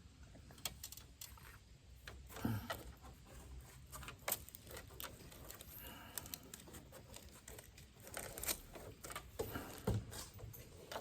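Faint handling sounds: small clicks, taps and rustling as a 9mm filter is fitted into a tobacco pipe's stem.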